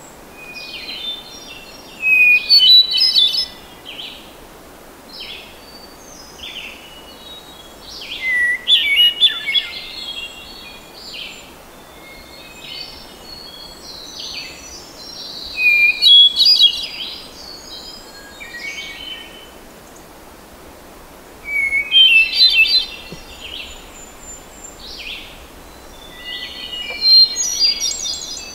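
Hermit thrush singing: five loud phrases about every five to six seconds, each opening on a long, clear note and breaking into a jumble of higher notes. Fainter bird song is heard between the phrases over a steady background hiss.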